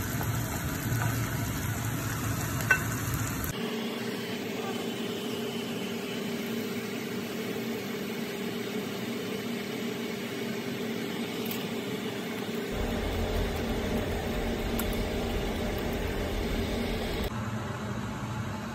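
Shrimp frying in a wok while a wooden spatula stirs them, with a sharp tap of the spatula about three seconds in. After that the sound turns to a steadier hiss over a low hum.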